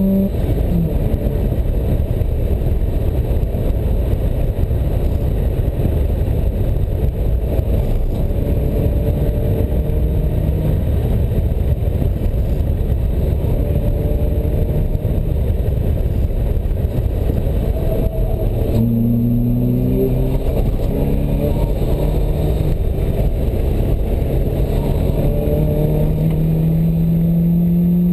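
Sports car engine driven hard, heard from the open cockpit under heavy wind buffeting. Its pitch drops at a gear change just after the start. Through the middle the engine is half-buried in wind noise; from about two-thirds in it pulls again and its pitch rises steadily as the car accelerates.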